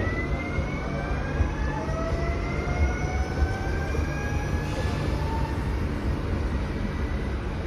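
Renfe Class 465 Civia electric multiple unit moving off, its traction motors whining in several tones that rise steadily in pitch as it gathers speed, over a steady rumble of wheels on rail.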